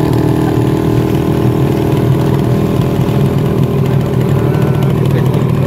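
Motorcycle engine of a motorcycle-and-sidecar tricycle running steadily at an even speed while riding.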